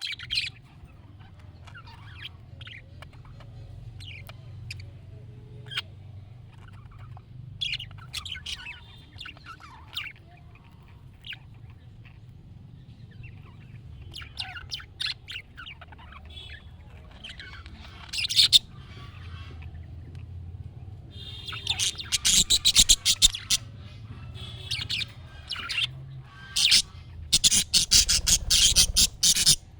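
Budgerigar chirping and chattering: scattered short, high chirps at first, then about two-thirds of the way through, dense, louder runs of rapid chattering.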